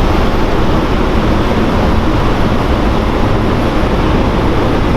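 Loud, steady rumbling noise with no distinct events, heaviest at the low end.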